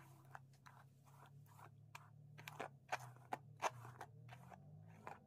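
Faint, irregular scratchy strokes of a synthetic wig's hair being smoothed and adjusted on the head, about fifteen in all, over a faint steady low hum.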